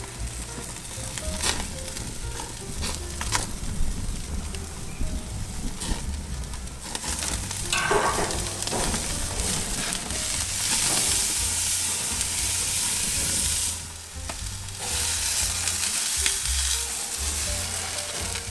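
Beef rump steak sizzling on a grill grate over a wood fire, with a few sharp crackles. The sizzle swells for a few seconds once the steak has been turned.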